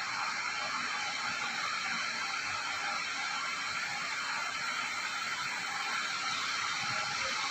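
Steady hiss of background noise, even throughout, with no distinct event.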